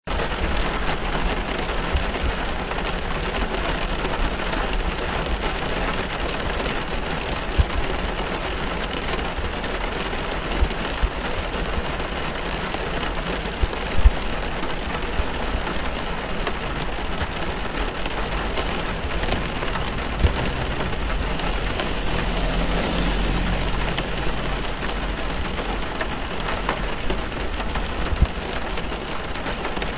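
Rain falling on a car, heard from inside the cabin: a steady hiss of rain on the roof and windows, with a few sharper thuds of heavier drops. A low rumble swells briefly about three-quarters of the way through.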